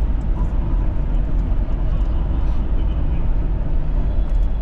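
A car being driven: a steady low rumble of road and engine noise.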